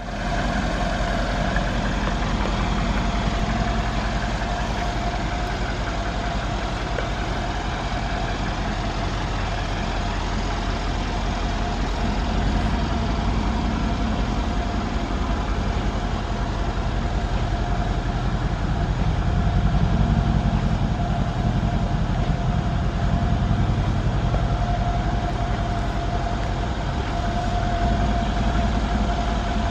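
Mercedes-AMG E63 wagon's twin-turbo V8 idling steadily: a low rumble with a thin steady whine above it, swelling slightly about two-thirds of the way through.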